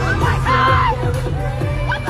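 Loud amplified pop music with a heavy bass line from a concert sound system, with high screams and whoops from fans over it, one near the start and another near the end.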